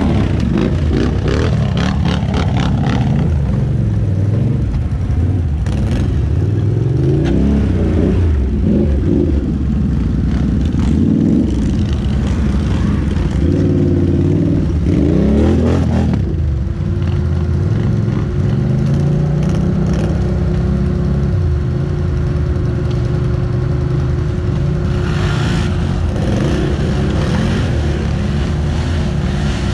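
ATV engine revving up and down repeatedly under throttle, with knocks and rattles from the machine in the first few seconds. About halfway through it settles into a steady drone at a held pitch.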